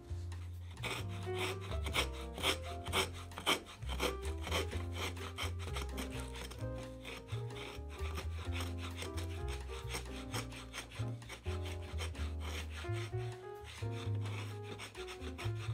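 Hand router plane cutting the floor of a notch in cherry wood in quick, repeated scraping strokes that lift shavings, over background music.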